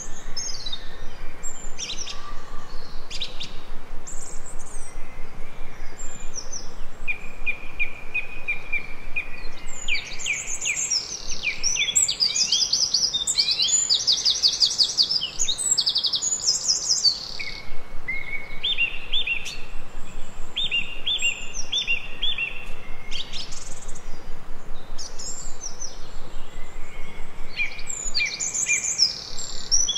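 Songbirds singing and chirping: a mix of high chirps, quick trills and runs of fast repeated notes, busiest in the middle, over a steady background hiss.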